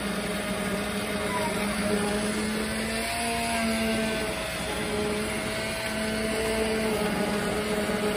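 Handheld immersion blender's motor running steadily, puréeing boiled split peas (dal) in a pot, its hum wavering slightly in pitch as the blade meets the food.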